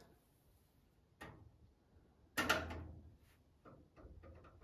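Handling knocks on a steel workshop cabinet as its door hinge screws are being fitted: a faint click about a second in, a single metallic clunk with a short ringing tail a little over two seconds in, then a few faint taps near the end.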